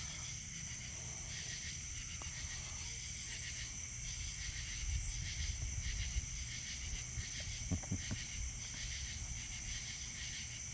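Insects chirping in a steady, rhythmic chorus over a low rumble, with a few soft knocks about eight seconds in.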